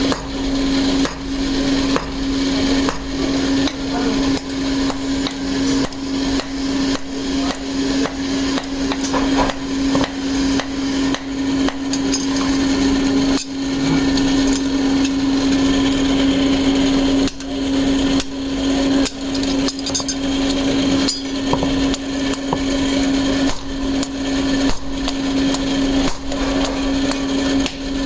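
Hammer blows on hot steel at an anvil, struck over and over at about two a second while drill bits are forged by hand, over a steady low hum.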